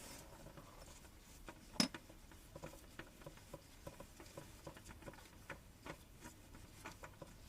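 Faint, irregular patter of engine oil dripping from the just-removed oil filter and its housing, about two to three drips a second, with one louder knock about two seconds in.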